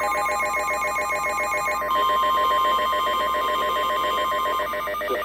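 Emergency Alert System alert tones: a rapidly pulsing, ringing electronic tone, joined about two seconds in by a steady single high attention tone that stops shortly before the end.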